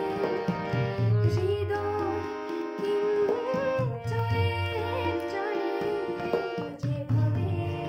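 A woman singing a song with tabla accompaniment over steady held notes. The deep tabla strokes come in recurring groups beneath the voice.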